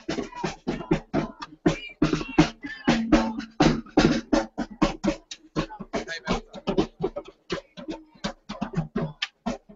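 Snare drum beaten with sticks in a quick, uneven rhythm of sharp strokes.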